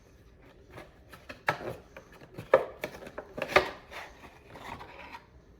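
CPU retail box being opened and its packaging handled: a few sharp clicks and crackles, the loudest about two and a half and three and a half seconds in, with light rustling between.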